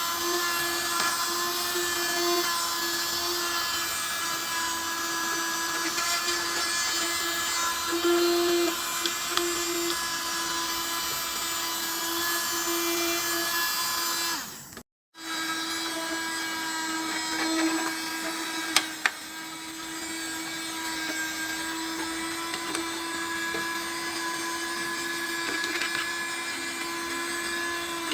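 Mini USB-powered sewing-machine vacuum running with a steady high-pitched motor whine and airflow hiss; the sound cuts out for a moment about halfway through, then carries on.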